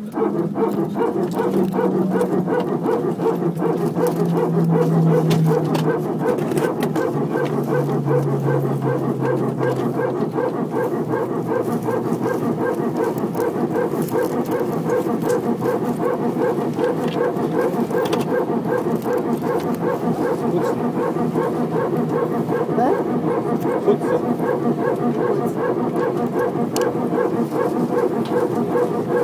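Airbus A318 hydraulic power transfer unit running with its rapid, buzzing 'barking dog' rattle, the sign that one hydraulic system is being pressurised from the other. During the first ten seconds a lower tone falls steadily in pitch beneath it.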